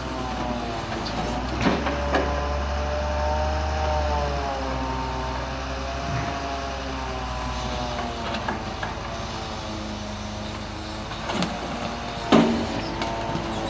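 Grapple truck's engine running its hydraulic knuckle-boom crane, the pitch slowly rising and falling as the boom swings out and lowers the grapple, with a few light clanks. A sharp knock near the end as the grapple comes down on the pile of cardboard.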